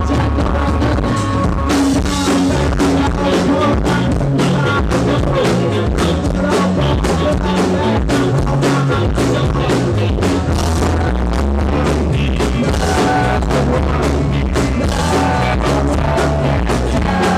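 Live rock band playing at full volume: strummed acoustic guitar, electric guitar, bass guitar and a drum kit keeping a steady beat, with a man singing lead.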